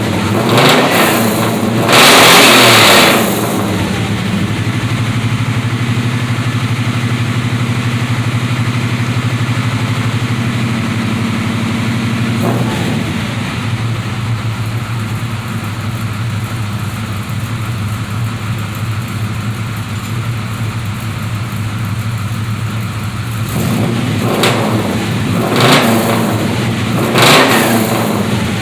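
383 small-block Chevy V8 running through Hedman headers, 2.5-inch pipes, MagnaFlow mufflers and pencil tips. It takes a few quick revs, the loudest about two seconds in, then idles steadily for about twenty seconds, then takes three more sharp revs near the end.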